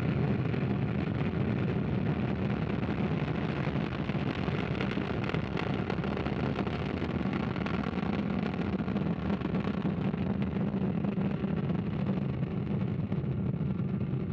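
Ariane 5 rocket lifting off, its Vulcain main engine and two solid rocket boosters firing: a steady, heavy rumbling roar.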